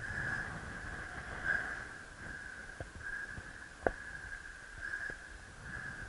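Wind buffeting the microphone in gusts, with a steady high whistle that swells and fades several times and a sharp click about four seconds in.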